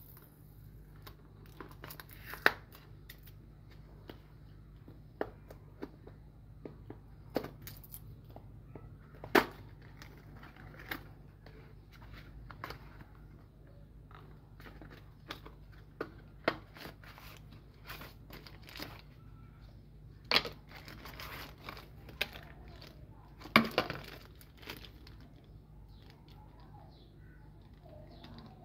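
Cardboard retail box torn open and handled by hand: scattered sharp clicks, snaps and tearing of thin card, with a few louder snaps and a stretch of rustling in the second half, over a steady low hum.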